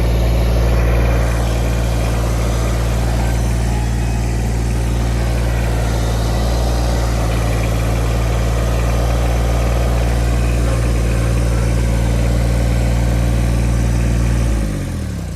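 Kubota BX24 compact tractor's three-cylinder diesel engine running steadily, then switched off near the end, its pitch falling as it runs down to a stop.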